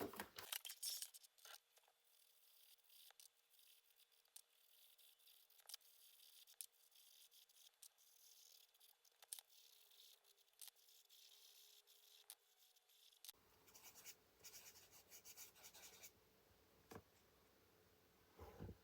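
Faint scratching and rubbing of chalk being worked onto the coloured-pencil paper of a colouring book, with scattered light ticks.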